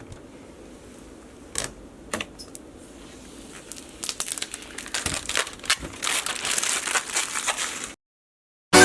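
Scattered sharp clicks that thicken from about halfway into a dense, crackling run of clicks. The clicking cuts off suddenly near the end.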